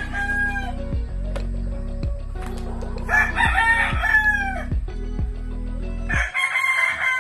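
Rooster crowing three times, each crow about a second long and falling in pitch at the end: one just finishing at the start, one about three seconds in, and one near the end.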